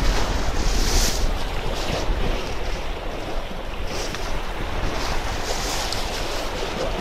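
Small sea waves washing and splashing against shoreline rocks, with several splashes a few seconds apart. Wind rumbles on the microphone, strongest at the start.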